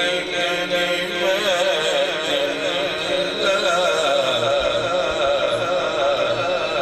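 A man's voice chanting Quran recitation (tilawat) in a slow melodic style, holding long notes with wavering ornaments.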